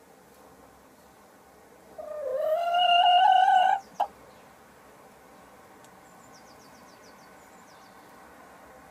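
Sussex hen on the nest giving one long, slightly rising call of about two seconds while laying an egg, followed by a short tap.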